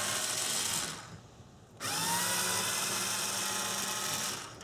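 Cordless electric screwdriver backing out Phillips screws from a fuel-pump access cover. Its motor whine stops about a second in, then after a short pause it spins up again with a rising whine and runs until shortly before the end.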